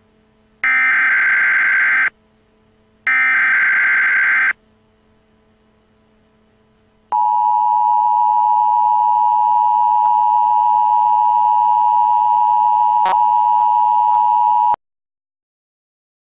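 Emergency Alert System signalling tones: two harsh buzzing digital data bursts, each about a second and a half long with a short gap between them, then, after a pause, the steady two-tone EAS attention signal (about 853 and 960 Hz together) sounding for about eight seconds before cutting off abruptly.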